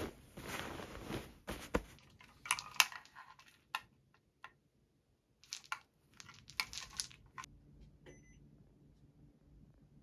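Soft rustling of fabric, then clusters of small sharp clicks and crinkles as a tangle of string lights with plastic bulbs is handled. It goes quiet about two seconds before the end.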